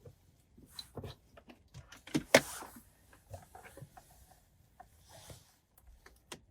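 A wiring connector being unplugged and wires and plastic trim handled in a car's center console: scattered small clicks and rustling, the loudest a sharp click about two seconds in.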